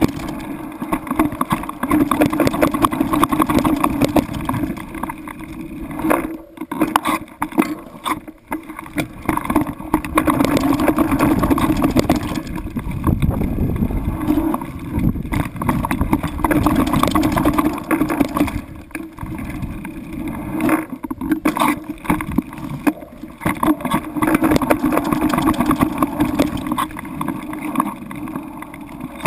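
Small motorboat's engine running, its loudness rising and falling unevenly, with a few brief dips.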